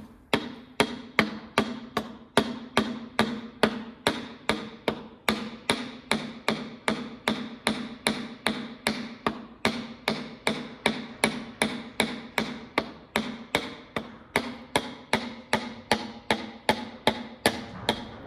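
A hammer tapping a piston down into the cylinder bore of a Massey Ferguson 165 tractor engine through a ring compressor: a steady run of light, evenly spaced strikes, a little over two a second, each ringing briefly.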